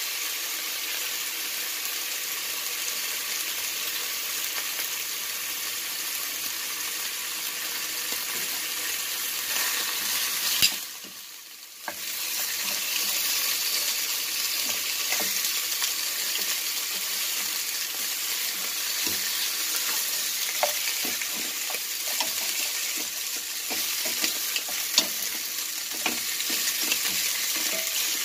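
Pork chops sizzling in oil in a frying pan as they brown toward golden, with small clicks and scrapes of a wooden utensil turning them. The sizzle dips briefly after a click about eleven seconds in, then resumes.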